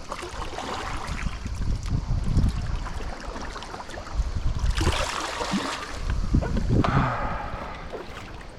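Sea water splashing and lapping around a stand-up paddleboard as the paddle dips in, with a low wind rumble on the microphone; two louder splashes come about five and seven seconds in.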